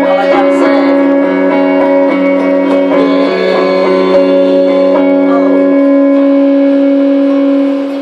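Guitar played through effects, long-sustained chords ringing out and changing a few times, then stopping abruptly near the end.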